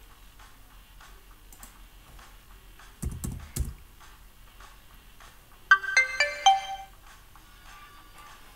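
A few keyboard keystrokes about three seconds in, then a short computer chime of several quick stepped notes: the Deepin desktop's notification sound as the screenshot is saved.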